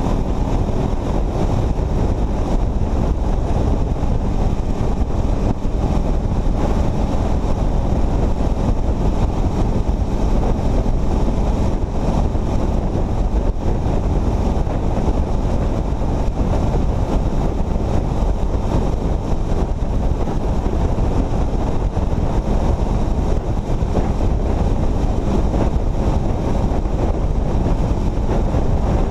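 Steady wind rush and road noise buffeting an exposed camera microphone on a vehicle at highway speed.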